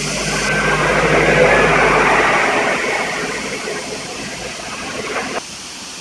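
Waterfall water rushing over rock: a steady hiss, loudest in the first couple of seconds with a low rumble under it, then easing, and dropping lower a little before the end.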